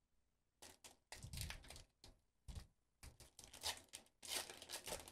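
Foil wrapper of a Pokémon booster pack being torn open and crinkled by hand, in a string of short rips and crackles.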